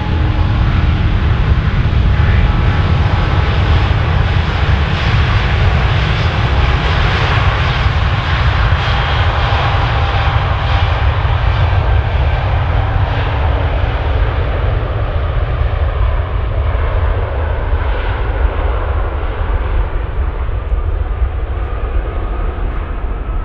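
Airbus A350's Rolls-Royce Trent XWB turbofans at takeoff power during the takeoff roll: loud jet engine noise over a deep rumble. It is fullest as the airliner passes, and the high hiss fades in the second half as it moves away down the runway.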